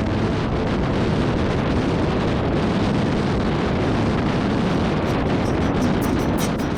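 Steady, loud rushing noise, with a few sharp clicks near the end.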